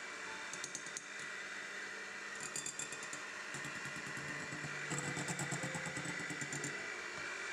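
Electric hand mixer running steadily, its motor whirring as the wire beaters whip in a glass bowl. There is a rattle of quick clicks about two and a half seconds in and again from about five seconds in.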